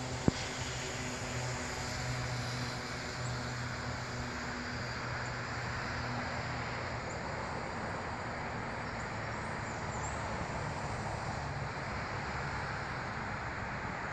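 A distant engine drone with a steady low hum that fades out about halfway through, over a steady rushing noise. A single sharp click comes just after the start.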